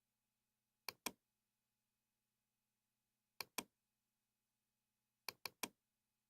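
Computer mouse clicks: a quick double click about a second in, another double click a few seconds later, and a triple click near the end, over a faint hum.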